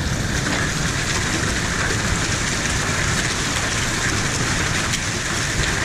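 Hailstorm: hail and heavy rain falling on roofs in a dense, steady rush of small impacts.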